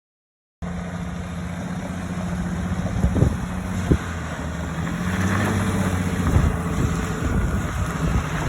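Cummins 6.7-litre inline-six turbo diesel of a 2019 Ram 3500 running steadily while pulling a heavy trailer, growing slightly louder. Two sharp knocks come about three and four seconds in.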